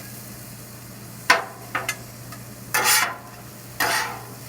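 Spatulas scraping and turning fried rice on a hot griddle: four quick scrapes over a sizzle, the longer two near the middle and end, with a steady low hum underneath.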